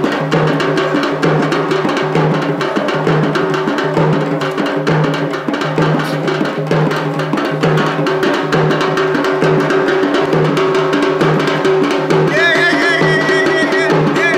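Fast, continuous dance drumming over a steady low drone. About twelve seconds in, a high wavering melody joins.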